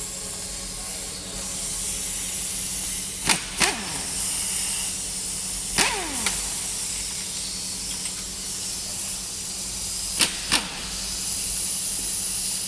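Sharp metal clinks in pairs, three times, as parts of a 2014 Acura RDX engine are worked on during teardown, over a steady hiss and low hum.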